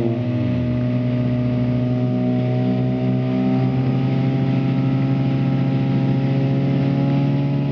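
Ford Fiesta WRC rally car's 1.6-litre turbocharged four-cylinder engine idling steadily, settling from a last throttle blip just as it begins.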